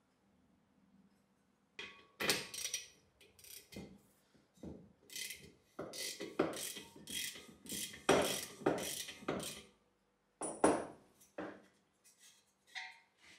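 Socket ratchet wrench clicking in repeated short bursts as nuts are turned on the lamp's metal tank. The bursts start about two seconds in and run for about eight seconds, then come a short pause, one more burst and a few lighter clicks.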